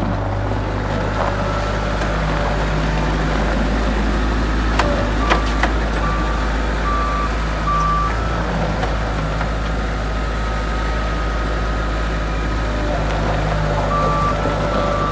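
Bobcat 773 skid steer loader's diesel engine running steadily, with a backup alarm beeping on and off. A few short knocks come about five seconds in.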